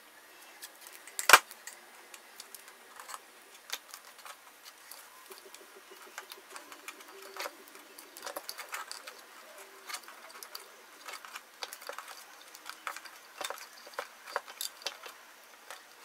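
Black electrical tape being pulled off its roll and wound around a soldered wire splice: scattered small crackles and clicks of the tape and handling, with one sharp click about a second in.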